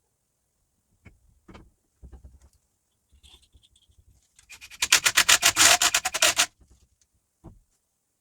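A few light knocks and taps, then a quick run of loud rasping strokes, about ten a second, lasting under two seconds, followed by one more knock.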